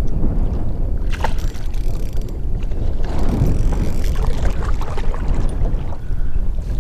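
Wind buffeting the microphone in a loud, constant low rumble. A few sharp knocks come about a second in, and a longer burst of noise around three to four seconds in.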